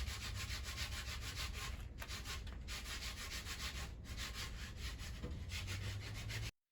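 Sandpaper rubbing back and forth on a wooden shelf board, a faint, even rasping of quick strokes, done lightly. It stops abruptly near the end.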